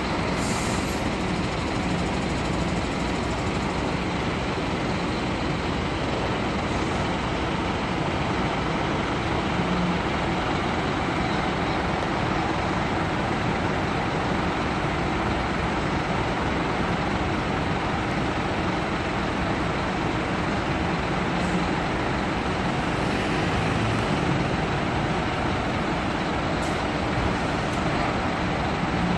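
Diesel engines of Marcopolo intercity coaches running at idle, a steady engine noise, with a brief hiss near the start.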